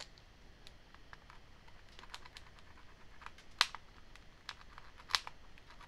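Small flathead screwdriver scraping and ticking against a rubber key plunger and the plastic key socket of a white MacBook keyboard, pushing hard to work the plunger off. It makes faint scattered ticks, with two sharper clicks about three and a half and five seconds in.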